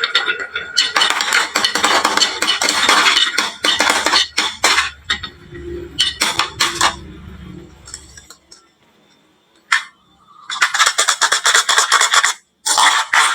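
Marbles clattering in rapid runs of clicks and clinks as they roll down a wooden marble-run slope and drop into toy trucks. The rattling dies away about eight seconds in, falls almost silent, then starts again in two more bursts.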